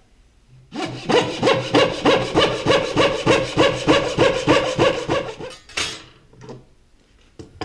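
Hand dovetail saw, a small backsaw, cutting down a marked line in the pin board of a dovetail joint, with quick even strokes, about four a second, for some five seconds. A single short rasp follows a little later.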